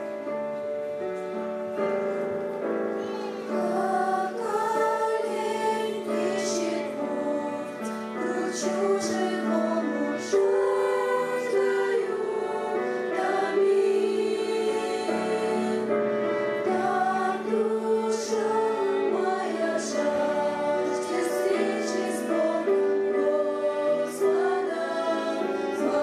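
A group of girls singing a Russian hymn together over a steady instrumental accompaniment, their voices coming in a few seconds in.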